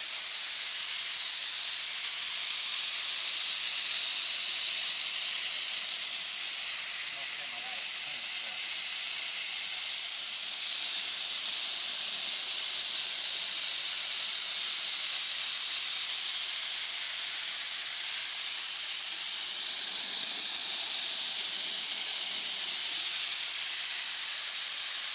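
Paint spray gun hissing steadily as it sprays stain. The gun is not getting enough paint and is spraying poorly.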